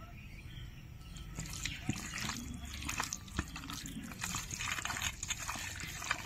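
Raw chicken pieces being mixed by hand in a wet marinade of curd, spices and mustard oil: irregular wet squishing and clicking, starting about a second in.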